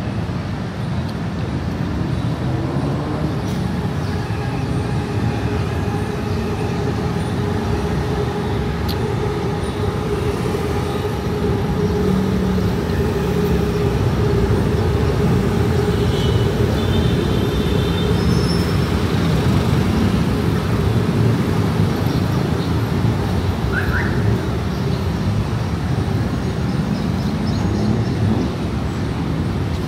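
Busy city street traffic: a continuous wash of engines and tyres from passing cars and buses, with a steady engine hum through most of it.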